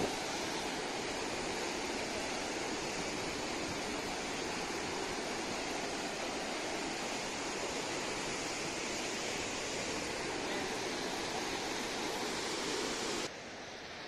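Steady rush of white-water rapids on the Narmada River below Dhuandhar Falls. About 13 seconds in it drops suddenly to a quieter, duller rush.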